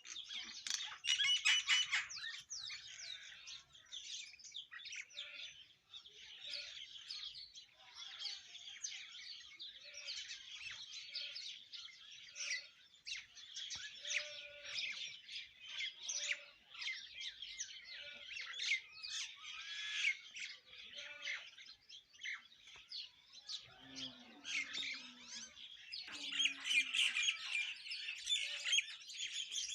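Mynas and sparrows chirping and calling over one another in a dense, continuous morning chorus, with louder bursts of chirping about a second in and again near the end.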